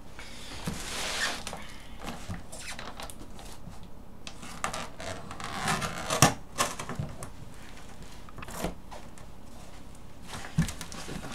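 Cardboard shipping box being handled: rubbing and scraping with scattered knocks, a sharp knock about six seconds in and a dull thump near the end.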